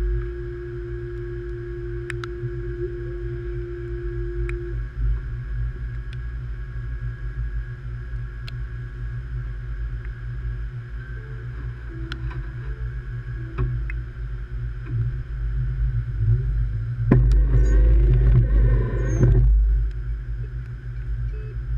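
Light rail train standing at a station platform with a steady low hum from its equipment and a few light clicks, then a louder rumble for a couple of seconds near the end as it starts to pull away.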